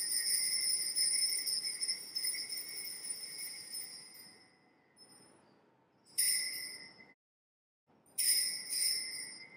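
Altar (sanctus) bells rung at the elevation of the chalice after the consecration: a bright jingling ring that fades away over the first four seconds, then a short ring about six seconds in and two more near the end, at the genuflection.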